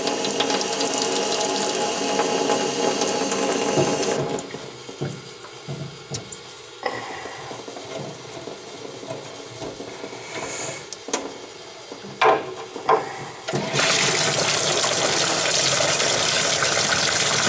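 Water running hard from an open tap. It shuts off about four seconds in, a few clicks and knocks follow, and the water comes back on near the end.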